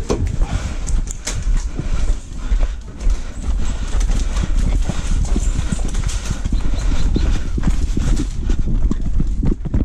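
Quick footsteps on a gravel and dirt path, a steady run of short crunching strides, over a low rumble on the head-mounted camera's microphone.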